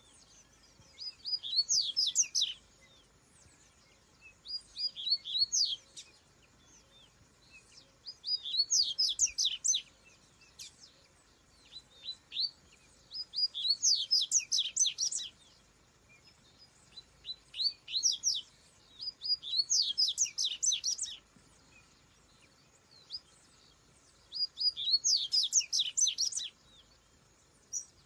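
Double-collared seedeater (coleiro) singing: bursts of rapid, high, sweeping notes lasting one to three seconds each, repeated after short pauses about seven times.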